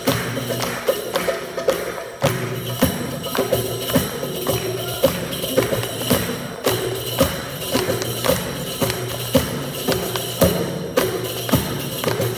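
An Arabic ensemble plays live music, with a steady beat of sharp hand-percussion strikes over sustained instrumental tones.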